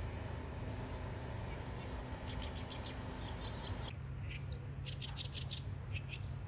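Small birds chirping: quick runs of short, high chirps, starting about two seconds in and continuing, over a steady low background hum.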